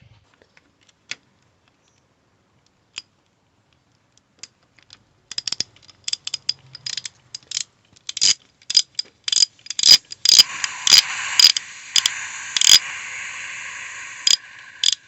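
A run of sharp mechanical clicks, sparse at first and then coming thick and irregular, with a steady hiss setting in about ten seconds in under the clicking.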